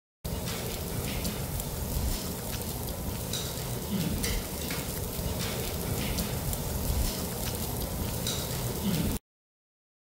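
Pork and pork-skin strips sizzling on a wire grill over charcoal, a steady hiss dotted with small pops and crackles. It cuts in just after the start and cuts off suddenly about a second before the end.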